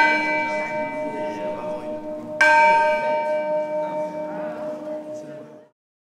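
A new Cornille-Havard bronze church bell, hung in a frame, is struck twice: once at the start and again about two and a half seconds in. Each stroke rings out with a long, slowly fading hum over a soft murmur of voices, and the sound cuts off suddenly near the end.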